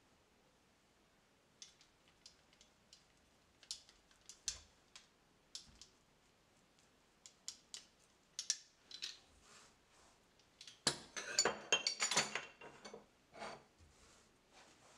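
Metal pizza cutter wheel rolling through dough and ticking against a metal baking pan, in scattered light clicks. About eleven seconds in comes a louder run of metal clinks and knocks lasting a second or two.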